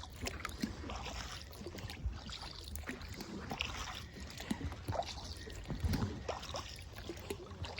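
Kayak paddling on a lake: the paddle blades dip into the water with small, irregular splashes and water trickles and drips off them, over a low steady rumble.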